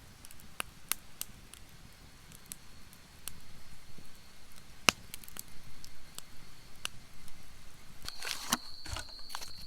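Campfire crackling with scattered sharp pops, while an insect calls with a steady high-pitched trill that grows louder near the end.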